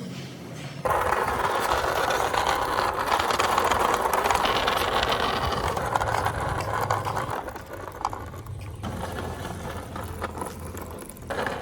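A steady mechanical running noise, starting about a second in and easing off after about eight seconds.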